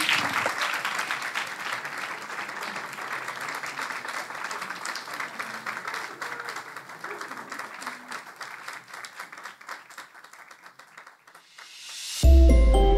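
Audience applauding, fading away gradually over about eleven seconds. Near the end a loud closing musical sting begins suddenly with a deep bass hit.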